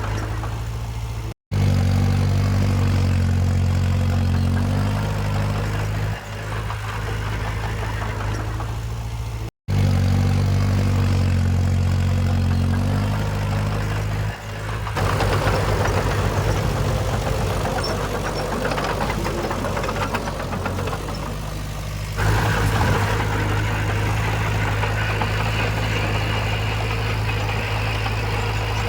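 Diesel engine of heavy earthmoving machinery running steadily, across several spliced takes. The sound cuts out briefly twice, about a second and a half in and again near ten seconds, and changes abruptly in tone about halfway through and again later.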